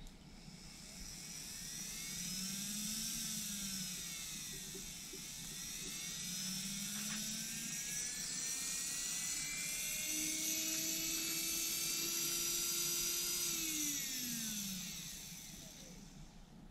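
Small 12 V DC gearbox motor whining, speeding up and slowing down twice in the first half, then running at a steady pitch for a few seconds. Near the end its pitch falls away and it winds down as the capacitor powering it drains quickly after power is stopped.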